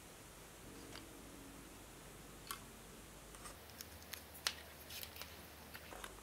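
Scattered small clicks and taps of hands handling a wooden-skewer model car chassis and fitting a small plastic servo, with a cluster of clicks near the end.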